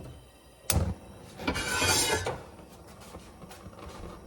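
Gas stove burner being lit: a sharp click under a second in, then a rushing whoosh as the flame catches, settling to a faint steady hiss.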